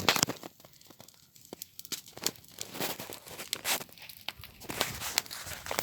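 Paper burning in a fire, with quick irregular crackles and rustling as the sheets catch and curl.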